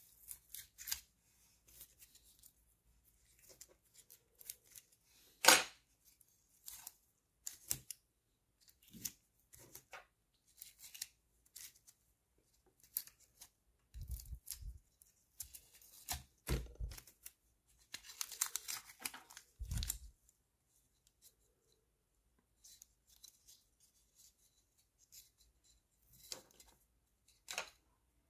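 Small hand cutting tool snipping plastic model-kit parts: a scattered series of sharp snips and clicks, one much louder about five seconds in. A stretch of scratchy rubbing comes around eighteen seconds in, along with a few dull knocks.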